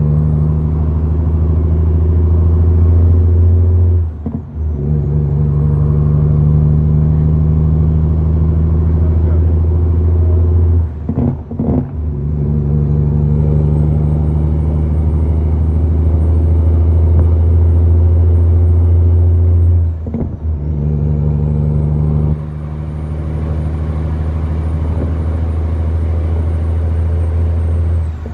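Western Star truck's diesel engine pulling steadily under load, heard from inside the cab, broken three times by short gaps as the gears are shifted. A faint high whistle climbs back after each shift.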